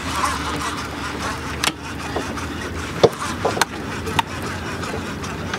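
A few sharp clicks and knocks from a heavy rod and reel being pumped and cranked against a hooked white sturgeon, the loudest about three seconds in, over steady wind and water noise.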